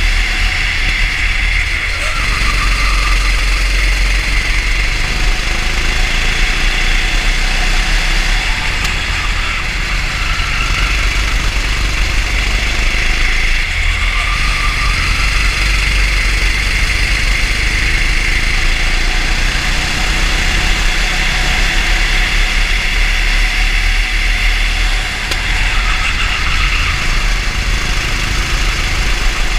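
Racing kart engine running hard close to an onboard camera, with the level dipping briefly a few times as the throttle eases for corners.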